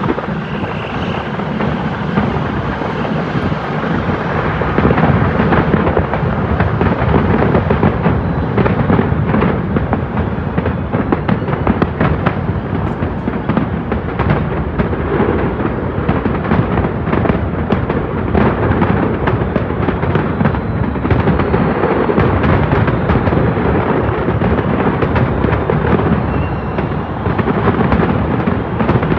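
Aerial fireworks display in full barrage: many shells bursting at once in dense, overlapping bangs and crackles over a continuous rumble, with no let-up.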